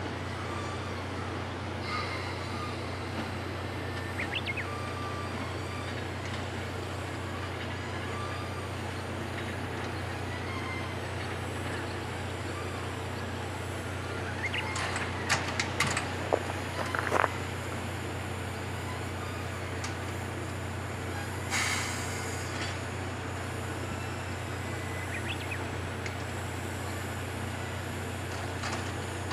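C58 363 steam locomotive moving slowly: a steady low hum, with a few scattered clanks about halfway through and a short hiss about three quarters of the way through.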